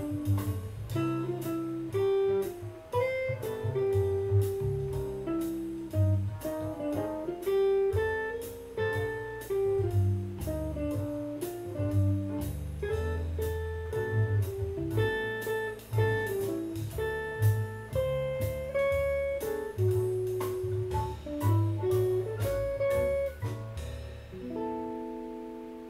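Clean-toned PRS electric guitar playing a jazz single-note solo line over a bass line. About a second before the end it settles on a held chord that rings and fades.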